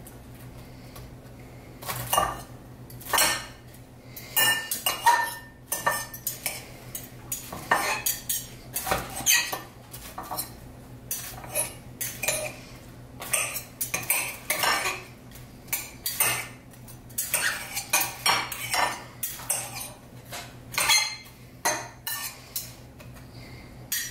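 Cutlery and plates clinking and knocking irregularly as food is handled at a kitchen counter, over a steady low hum.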